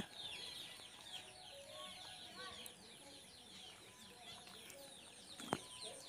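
Chickens clucking faintly and softly, under a steady chatter of many short, high chirps. One sharp click near the end.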